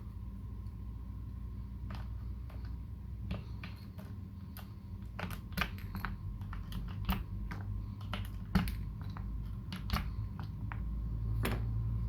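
Typing on a KBD75v2 custom mechanical keyboard with lubed Holy Panda tactile switches and GMK Dolch keycaps: irregular keystrokes, a few a second, with a louder stroke about eight and a half seconds in. A steady low hum lies underneath.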